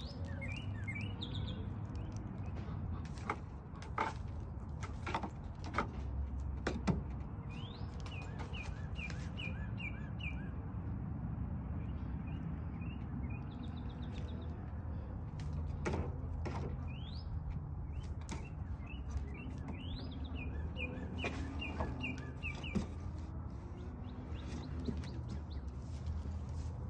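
Small birds chirping in runs of short, quick rising notes, repeated several times, over a low steady rumble, with a few sharp clicks.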